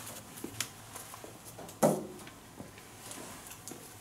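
Faint handling noise: small clicks and taps as a paper-wrapped firework tube is turned over in the hand, with one louder short knock a little under two seconds in.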